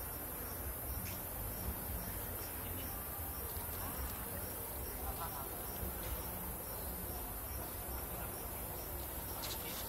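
Steady outdoor insect chorus, with a cricket-like chirp repeating at an even pace above a hiss, over a low rumble.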